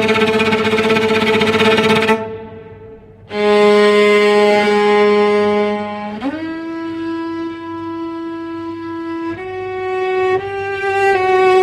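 Eerie bowed-string horror music: long held violin notes, the first grainy and scraped, fading out about two seconds in. A new note enters soon after, slides down in pitch about six seconds in, steps up again later, and takes on a wavering pulse near the end.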